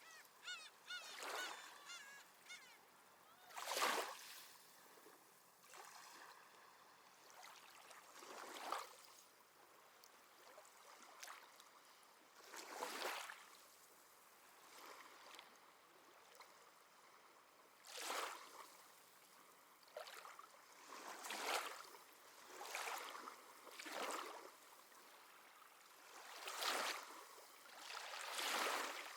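Gentle sea waves washing in and drawing back, a soft swell every few seconds. Seabirds call a few times in the first few seconds.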